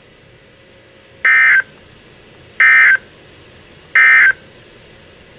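NOAA Weather Radio digital data tone (SAME/EAS end-of-message code): three short, identical warbling bursts, each about a third of a second long and about a second and a half apart. They mark the end of the warning broadcast.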